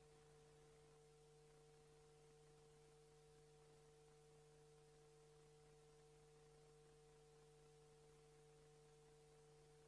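Near silence: a faint steady hum of a few held tones under low hiss, with no other sound.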